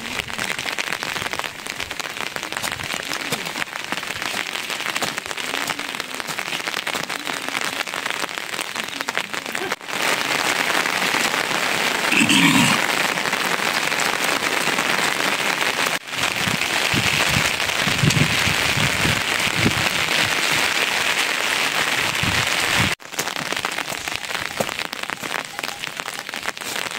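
Steady rain falling, an even dense hiss that breaks off briefly three times, about ten, sixteen and twenty-three seconds in.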